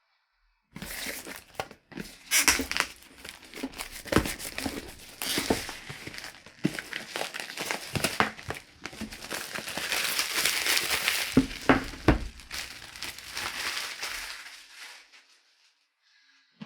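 Power supply packaging being unpacked by hand: plastic or paper crinkling and tearing, with many sharp knocks and scrapes from the cardboard box. It starts after a short silence, is busiest and loudest around the middle, and fades out near the end.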